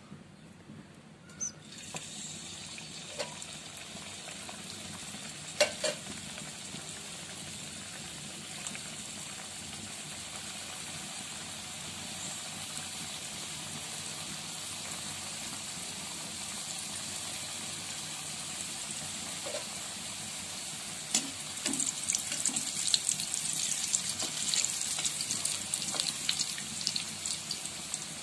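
Stuffed wheat-flour dough snacks deep-frying in hot oil. Sizzling starts about two seconds in as the pieces go in, with a few clicks. Near the end it turns louder and crackly while the pieces are turned with a slotted spoon.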